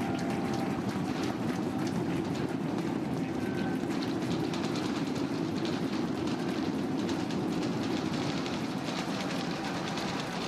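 SpaceX Super Heavy booster's 33 Raptor methane engines roaring during liftoff and ascent, a steady low rumble threaded with a dense crackle.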